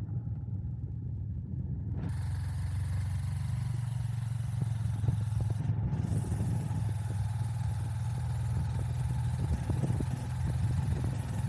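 A motor vehicle's engine running steadily under road and wind noise, with a brighter hiss coming in suddenly about two seconds in.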